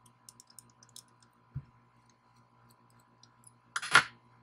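Faint small clicks of a screwdriver and fingers working on a hobby servo's plastic horn, then a short clatter of small parts set down on a hard workbench top near the end.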